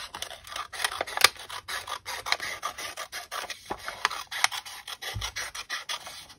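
Scissors cutting through several layers of folded paper: a quick, irregular run of short snips with the rustle of the paper.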